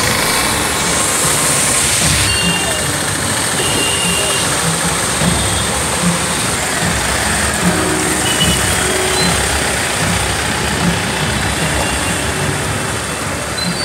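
Street traffic wading through floodwater: motorcycle and vehicle engines running over a steady wash of splashing water, with people's voices in the background.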